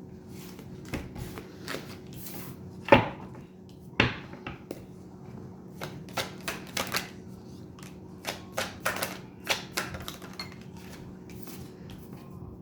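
Tarot cards being shuffled and drawn by hand: irregular clicks, flicks and slaps of card stock, the loudest two slaps about three and four seconds in.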